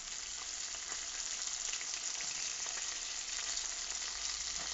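Small fish and potato pieces sizzling steadily as they fry in hot oil, stirred with a spatula.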